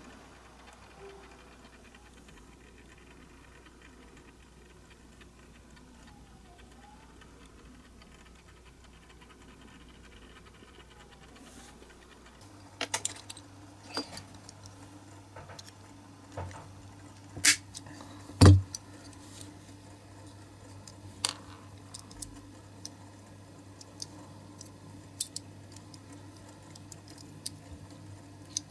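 Quiet room tone for the first dozen seconds, then cutters snipping through the old crimped axles of a Lesney Matchbox diecast toy car: a few sharp metal snaps, the loudest two about two thirds of the way in, among small clicks and taps of metal parts being handled.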